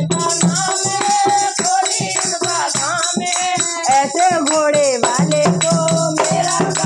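Kirtan music: a boy singing a Hindi devotional bhajan over a two-headed dholak drum, a rattling plastic clapper and small manjira hand cymbals, with hand-claps and women's voices joining in. The dholak's low beats thin out in the middle and come back strongly about five seconds in.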